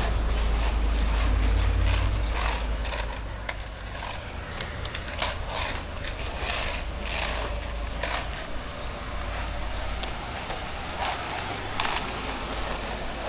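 Outdoor street ambience: a low rumble that eases after about two seconds, then scattered short knocks and faint sounds of passers-by.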